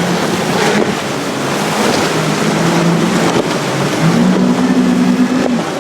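Storm wind buffeting the microphone over rushing, crashing sea water, with a low droning tone underneath that steps up in pitch about four seconds in.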